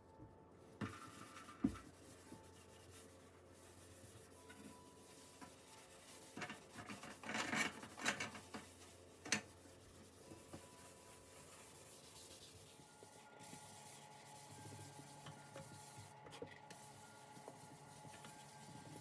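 Quiet rubbing and scraping sounds of something being handled, with a cluster of scratchy strokes about halfway through and a couple of sharp knocks.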